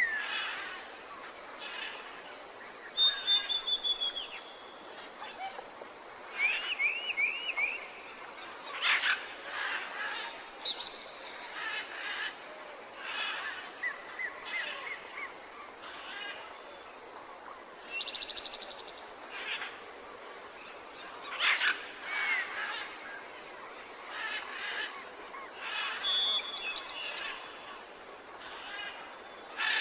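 Tropical forest ambience: many birds calling, with short chirps, quick repeated whistled glides and trills coming every second or two, over a steady high whine.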